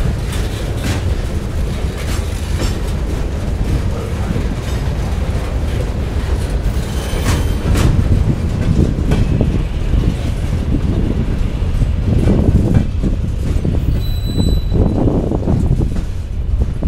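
CSX mixed freight train's cars rolling past with a steady low rumble of steel wheels on rail and scattered knocks. Brief high wheel squeals come about halfway through and again near the end.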